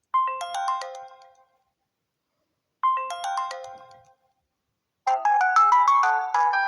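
Samsung smartphone alarm tones: a short chiming melody plays twice, about three seconds apart, each dying away, then a fuller melody starts about five seconds in and keeps going.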